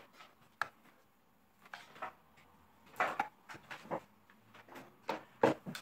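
Irregular clicks, knocks and rustles of plastic power-supply adapters and their cords being handled and set down on a wooden table, with the loudest knock near the end.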